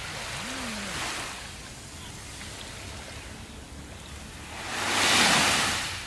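Small waves breaking and washing up a sandy beach. A gentle wash comes about a second in, and a larger wave swells up, peaks about five seconds in and fades.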